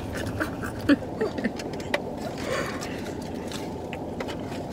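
Steady low hum inside a car cabin, with a few sharp clicks and a brief rustle from food being handled and eaten about one to two and a half seconds in.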